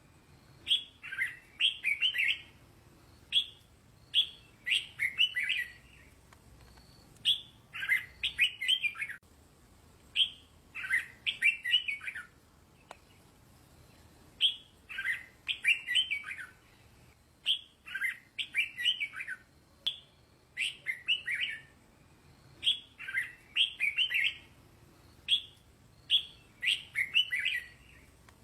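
Red-whiskered bulbul singing: short phrases of a few quick, warbled notes, repeated every one to two seconds with brief pauses between.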